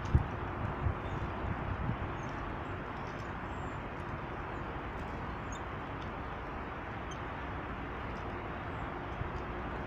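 Steady rushing background noise with faint, short, high bird chirps now and then. There are a few low thumps in the first couple of seconds.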